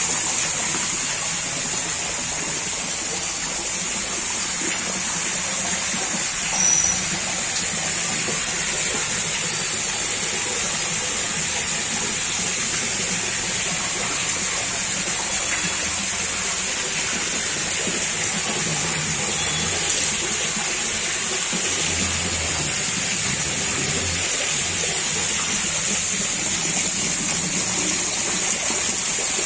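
Steady gushing of water pouring from a pipe into a shallow fish tank.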